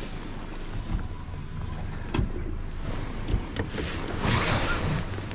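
Low steady hum of a boat motor idling as two boats come alongside, with a sharp knock about two seconds in and a rush of noise near the end as a man climbs across.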